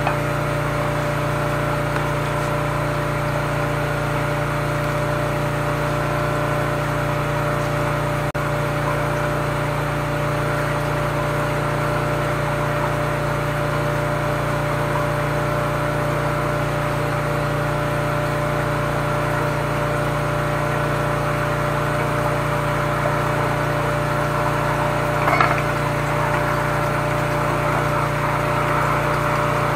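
High-pressure sewer jetter's engine-driven pump running steadily while jetting a clogged drain line, with one brief louder sound about 25 seconds in.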